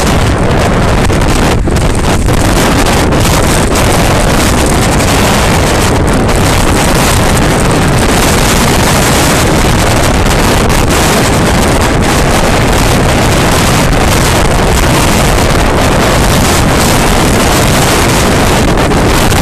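Loud, steady wind rushing over a bicycle-mounted action camera's microphone as the bike rides along the road.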